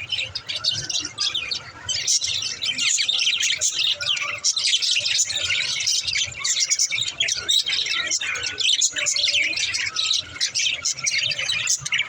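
Several budgerigars chirping and chattering: a dense, unbroken run of quick high chirps, busier from about two seconds in.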